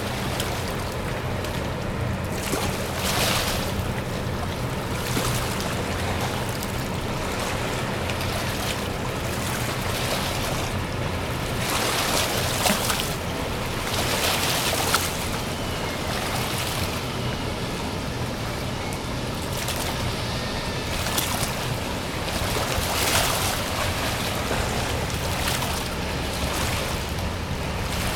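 Sidewheel steamship Trillium under way: a steady low hum of the ship's machinery beneath rushing water and wind that swell and ebb every few seconds.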